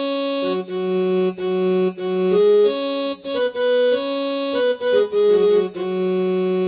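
Casio CTK-2550 portable keyboard played by hand in one of its built-in sustained tones. A short melody moves over held notes that keep their level without fading, ending on a long held chord.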